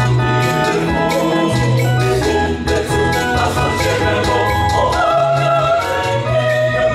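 A small mixed choir singing in harmony, with electronic keyboard accompaniment holding low bass notes beneath the voices.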